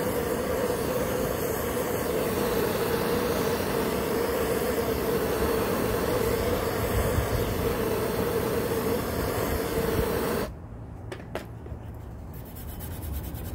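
Handheld gas torch flame burning steadily with a hiss and a steady hum, heating the paint on a saw blade to soften it. It cuts off suddenly about ten seconds in, leaving a few light clicks.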